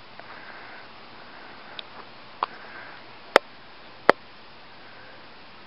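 Faint steady outdoor hiss with a few sharp handling clicks while a caught bluegill is taken off the hook by hand; the two loudest clicks come about three and four seconds in.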